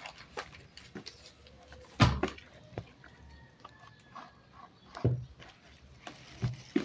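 Hands kneading and beating soft, sticky bread dough in a plastic tub: wet squelching and small slaps, with a few heavy thumps of the dough, the loudest about two seconds in and others near five and six and a half seconds.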